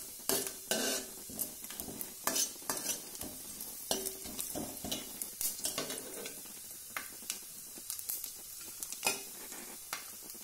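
A steel spoon scraping and clinking against a metal pan in irregular strokes as sliced fresh coconut is stirred and sautéed in hot oil, over a faint sizzle.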